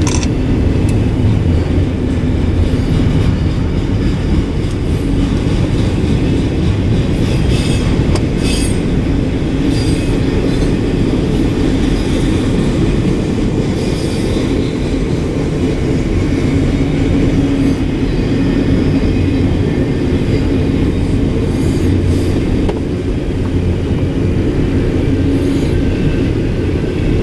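Double-stack intermodal container train's well cars rolling past: a steady rumble of steel wheels on the rails, with a few brief high squeaks now and then.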